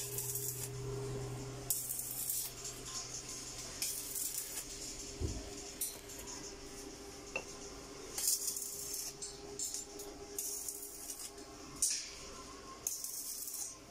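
Stick arc welding on a steel cage frame: the electrode arc crackles and sizzles in about six short spells, each a second or less, as joints are tacked. A steady hum runs under it, with a lower hum through the first few seconds.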